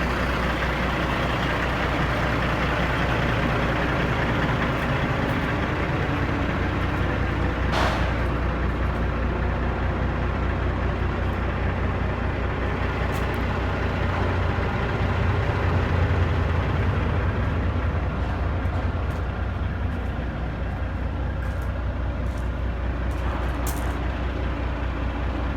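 Semi truck's diesel engine running steadily, with a continuous low drone and rushing noise; a short hiss of air about eight seconds in, and the engine grows louder for a couple of seconds around the middle.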